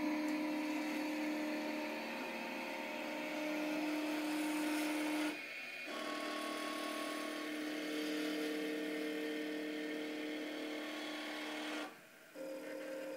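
Electric motors of a homemade belt-driven robot arm whirring at a steady pitch as the arm's joints move, stopping briefly about five seconds in and again near the end.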